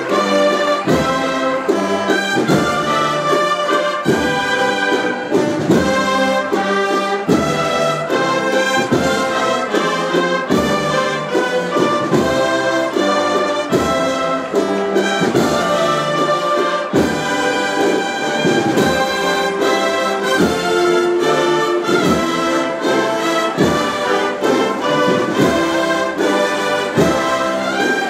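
Brass band playing a Holy Week processional march, with trumpets and trombones over a steady drum beat.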